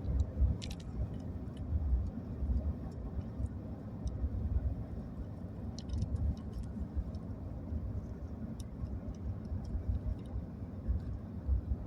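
Road and engine noise inside a moving vehicle's cabin: a steady low rumble, with a few faint short clicks or rattles.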